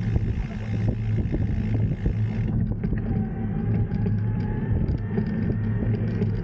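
Steady low rumble of wind buffeting the microphone and road noise while riding a bicycle along a street.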